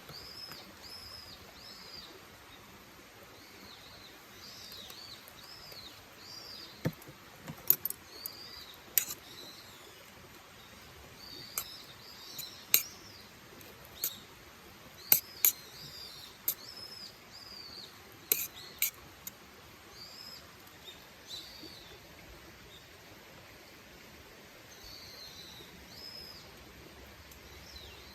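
A bird calling over and over with short arching notes, and a scatter of sharp cracks and clicks, bunched in the middle.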